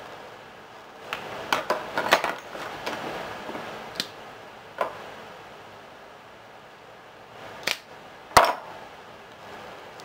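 Spice jars being handled and set down on a kitchen countertop: a quick flurry of clicks and knocks in the first few seconds, a couple of single taps, then two sharper knocks near the end.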